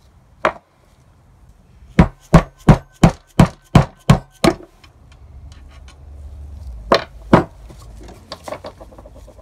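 A screwdriver being driven down through the spark plug holes of a Toyota 7A-FE aluminium valve cover to knock out the old leaking spark plug tube seals, some already split: a run of about eight sharp knocks, roughly two and a half a second, then two more knocks and a few lighter taps.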